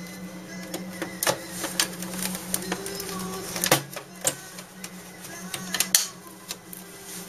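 Plastic latches of an HP all-in-one inkjet printer's outer housing clicking and snapping, a dozen or so sharp clicks at irregular intervals, as the casing is pried loose and lifted off. A steady low hum runs underneath.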